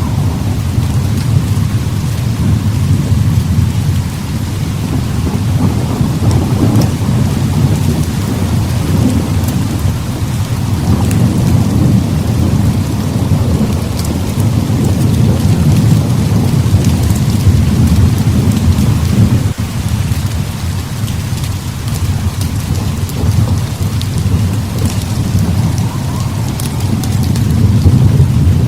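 Heavy rain with thunder rumbling low and continuously, swelling and easing in waves.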